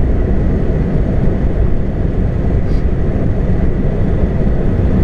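Steady low rumble of a moving vehicle, the even road and engine noise of a car in motion.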